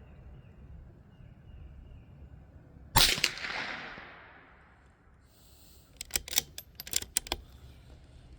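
A single .22LR rifle shot from a Bergara B14R bolt-action rifle about three seconds in, a sharp crack with a decaying echo. About three seconds later comes a quick run of short metallic clicks, the bolt being worked to chamber the next round.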